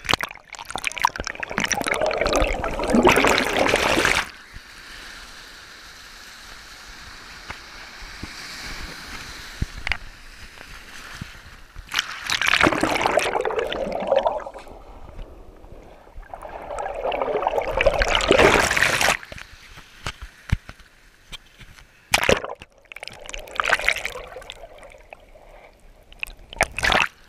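Shallow sea water sloshing and splashing over an action camera's microphone, in several loud surges a few seconds long with a few short sharp splashes, muffled and duller in between while the camera is under water.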